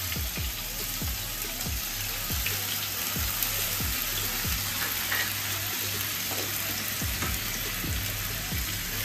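Chopped onions frying in hot oil in a kadai, a steady sizzle as they are stirred with a silicone spatula. Background music with a steady beat plays underneath.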